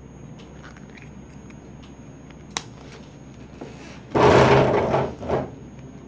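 Red suction-cup handle being worked loose from a phone's glass back: a sharp click, then a loud rush of noise about a second long as the cup is released, with a shorter one just after.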